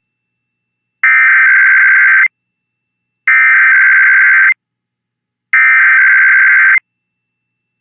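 Emergency Alert System SAME header: three identical bursts of two-tone digital data, each just over a second long with about a second of silence between. The coded header announces a Required Weekly Test.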